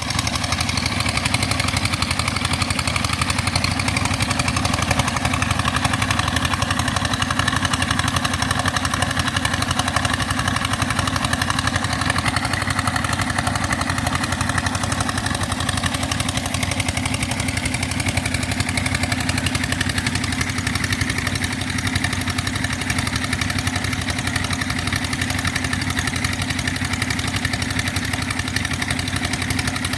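Engine of a sand-suction pump machine running steadily at a constant speed.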